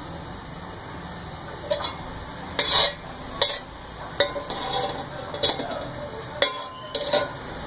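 Metal slotted spatula scraping and clinking against the inside of a metal cooking pot as it stirs oil that is heating, in a string of sharp knocks and scrapes about once a second.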